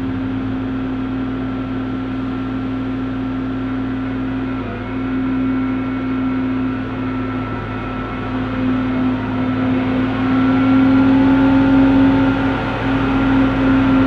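Diesel engines of rail maintenance machines running with a steady hum. The sound grows louder from about ten seconds in as the machines approach and roll through the grade crossing.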